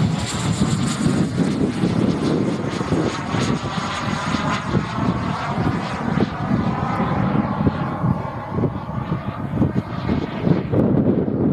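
Jet Munt 100 model gas turbine powering a radio-controlled YT Pantera jet in flight, a steady jet rush and whine. A high thin tone fades out about two seconds in, and the pitch slowly falls as the jet passes overhead.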